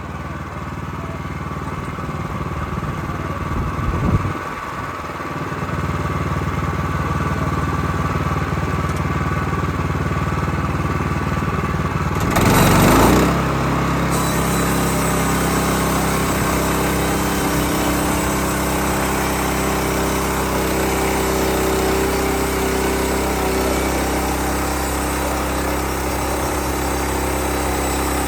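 Bushlander HM122 portable sawmill's engine running steadily, with a brief louder rush about twelve seconds in, after which its note settles into a slightly different pattern.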